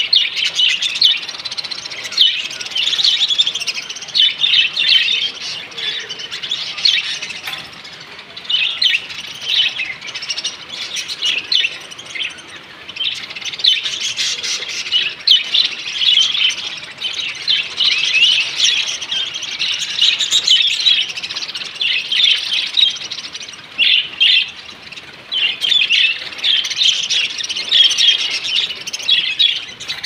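Many budgerigars chattering and chirping together: a dense, continuous high-pitched twittering that swells and dips in loudness.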